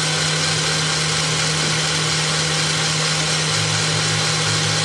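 Electric stand mixer running steadily at high speed, its wire whisk beating egg whites and sugar in a stainless steel bowl into meringue that is nearing soft peaks.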